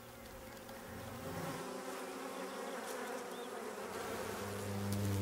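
Flying honeybees buzzing, a steady hum of wingbeats, with a louder, lower buzz that swells near the end and then cuts off.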